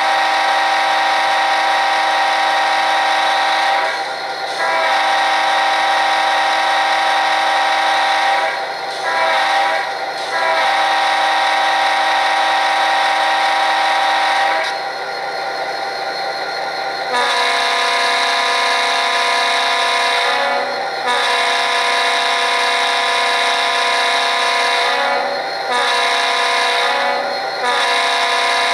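Sound decoder in an HO-scale Athearn Genesis GP39-2 model diesel playing a locomotive air horn through the model's small speaker, blown long, long, short, long as at a grade crossing. About halfway through the horn sound switches to a second, differently pitched horn, the decoder's alternate horn, which blows the same long, long, short, long pattern.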